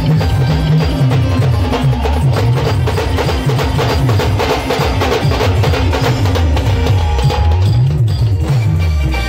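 Loud live band music through a big speaker stack: fast drum and percussion hits over a heavy bass line that steps up and down in a repeating pattern.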